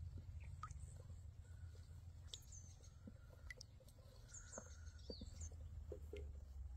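Faint ambience: a steady low rumble with scattered light clicks and a few short, high, falling chirps.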